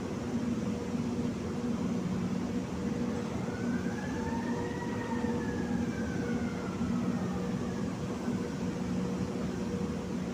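Steady roar of blast furnace plant machinery with a constant low hum. A faint siren-like tone rises and then falls once around the middle.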